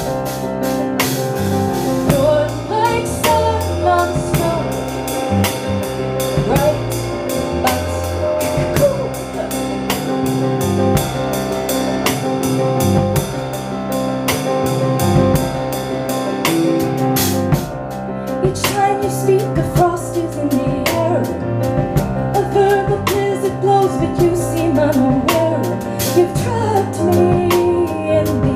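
Live song: a woman singing over keyboard and drums with a steady beat.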